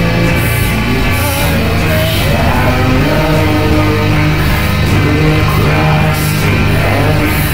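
Background music with singing, over a band whose cymbal-like hits fall about once a second.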